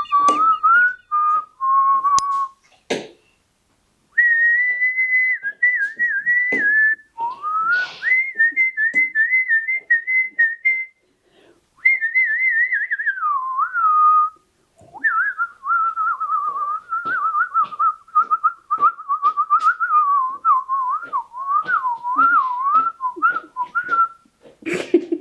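Parakeet whistling: a run of clear whistled phrases that waver and trill up and down, with short breaks and small clicks between them.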